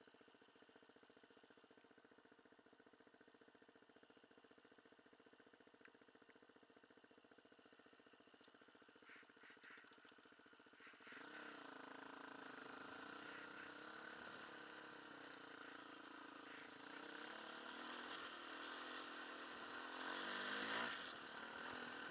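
Enduro motorcycle engine idling quietly and steadily, then pulling away about halfway through and riding on, the engine note rising and falling with the throttle and getting louder near the end.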